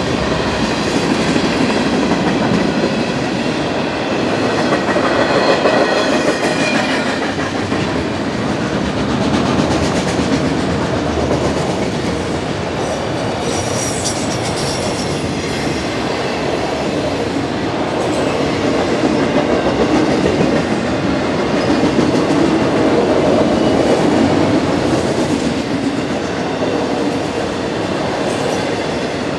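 Freight cars of a passing freight train rolling by at speed: the steady noise of steel wheels running on the rails, with a brief high squeal about halfway through.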